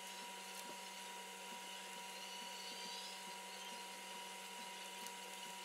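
Faint, irregular ticks of a hot stippling tip being pressed again and again into a polymer pistol grip, about twice a second, over a steady electrical hum.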